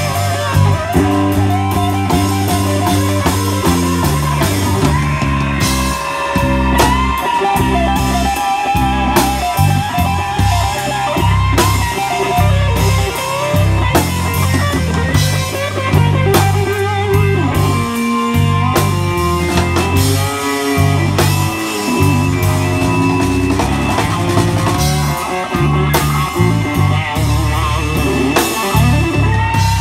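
Live blues band playing an instrumental passage: a Fender Stratocaster electric guitar plays lead lines with bent notes over a drum kit and a stepping low line.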